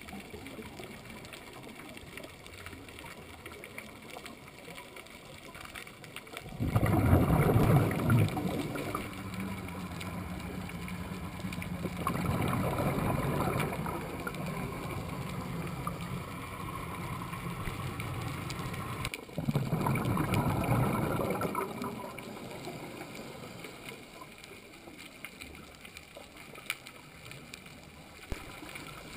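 Scuba diver's regulator exhalations heard underwater: three bubbling bursts of about two seconds each, several seconds apart, over a low steady underwater hiss.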